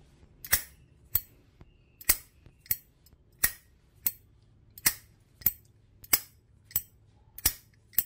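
Zippo Armor lighter with a thick brass case, its hinged lid flicked open and snapped shut with the thumb about six times. Each opening click is followed a little over half a second later by a closing click, in an even rhythm.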